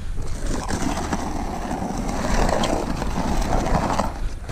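Steel shovel scraping and spreading wet mortar along the tops of concrete foundation blocks and scooping more from a wheelbarrow: a continuous gritty scrape over a steady low rumble.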